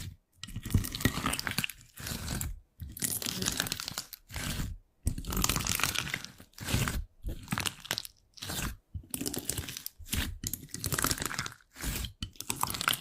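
Crunchy slime being pressed and squeezed, crackling in about a dozen short bursts roughly a second apart, with brief silences between them.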